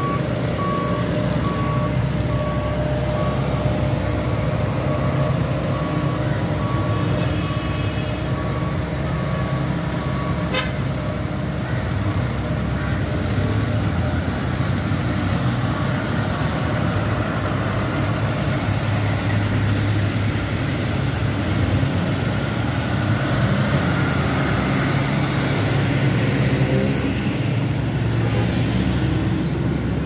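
Diesel engines of pneumatic-tyre and tandem road rollers running steadily as they compact fresh asphalt. A repeated single-pitch beep sounds through the first several seconds, and a vehicle horn toots briefly about eight seconds in.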